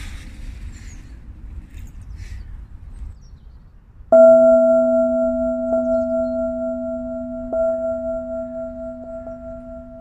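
Soft wind noise at first. About four seconds in, a singing bowl is struck and rings on in a low tone with two higher overtones, fading slowly, with a lighter strike about three seconds later.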